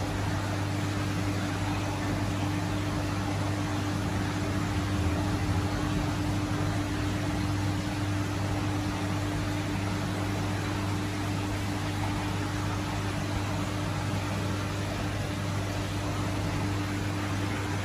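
Steady hum and even hiss of the cooling and aquarium equipment in an air-conditioned tank room, with a constant low drone and a faint steady tone that do not change.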